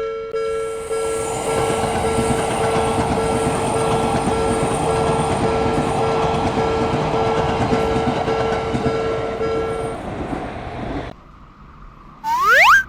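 Japanese railroad crossing bell ringing its electronic ding about twice a second while a Seibu Railway train passes with a steady rush of wheel and rail noise. The bell stops about ten seconds in and the train noise cuts off abruptly a second later. Near the end comes a short, loud rising sweep of tone.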